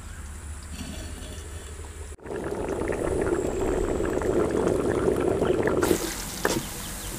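Lentils (dal) boiling hard in a clay handi, a thick bubbling full of small pops, from about two seconds in: they have reached a full rolling boil. Near the end, chopped onions sizzle in hot oil in a steel pot as a wooden spoon stirs them toward golden brown.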